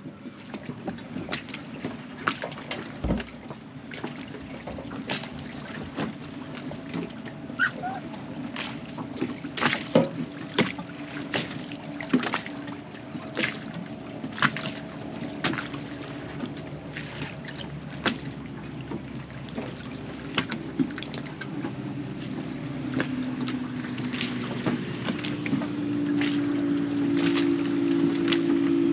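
Small waves slapping against the hull of an anchored boat at irregular intervals, over a steady low drone of a motorboat's engine that grows louder over the last several seconds.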